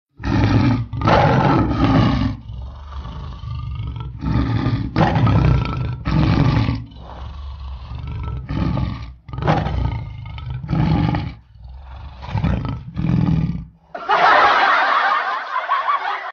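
Tiger roar sound effect: about eleven short, loud roars in groups of two or three, with lower growling between them, then a harsher hissing noise for the last two seconds. It is played as a prank to scare a sleeping dog.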